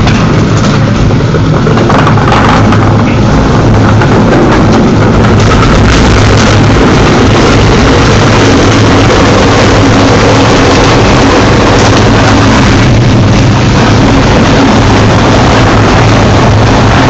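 1998 Challenger hopper-fed grinder running, a loud, steady engine-and-machine drone with scattered knocks through it.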